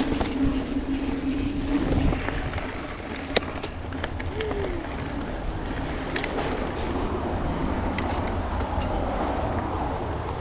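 Mountain bike riding fast down dirt singletrack: wind rushing over the handlebar camera's microphone and the tyres rolling on dirt, with many sharp clicks and rattles from the bike over bumps. A steady hum runs through the first two seconds, then stops.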